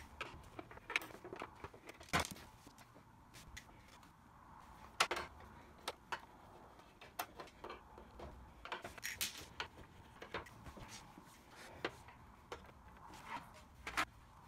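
Screwdriver work and handling as the end of a Roland Juno-106 synthesizer's case is unscrewed and opened: scattered small clicks, knocks and scrapes of screws, tool and case parts, with a few sharper knocks about 2, 5, 9 and 14 seconds in.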